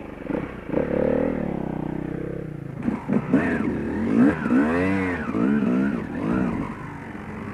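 Yamaha YZ250 two-stroke dirt-bike engine running, then revving up and down in a series of throttle blips from about three seconds in.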